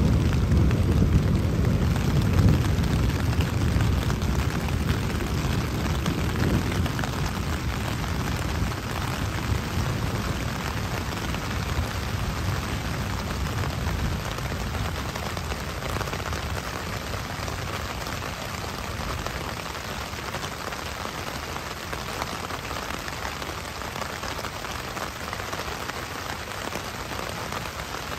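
Heavy rain falling steadily on a hammock tarp, with a deep rumble of thunder at the start that dies away over the first several seconds.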